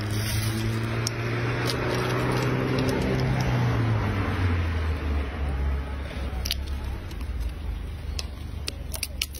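Low engine hum of a passing motor vehicle that drops in pitch about four seconds in, over a steady hiss. A few sharp cracks come near the end.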